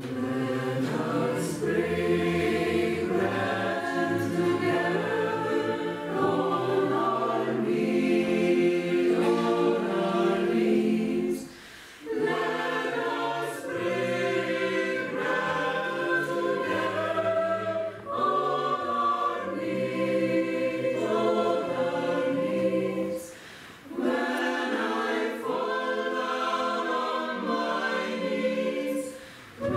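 A church choir singing a sacred song in several voice parts, in phrases broken by short pauses.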